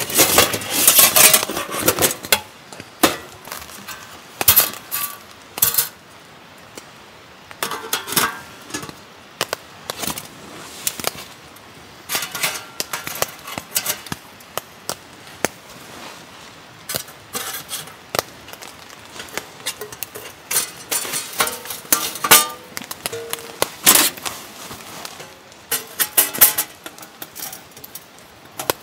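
Stainless steel panels of a Pomoly T1 Taisoca folding wood stove clinking and clattering as they are pulled from a padded bag and slotted together, with short metallic rings between the knocks. The knocks come thickest in the first couple of seconds.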